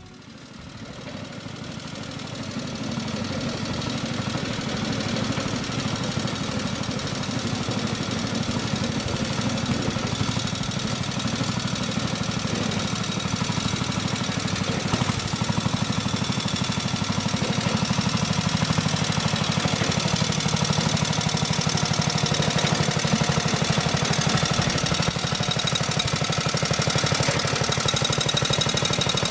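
JAP petrol engine of a Road Machines contractor's monorail running as the skip wagon travels along its track. It grows louder over the first few seconds as the wagon approaches, then holds a steady, rapid beat.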